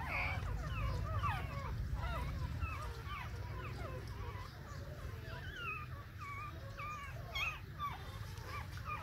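Newborn puppies whimpering and squeaking, a continual stream of short, high cries that rise and fall in pitch. A brief sharp click about seven and a half seconds in.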